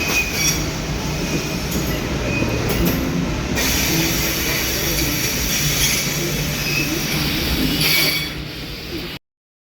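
Electric commuter train running through a station: wheels rumbling on the rails with thin, intermittent squeals. The sound cuts off suddenly shortly before the end.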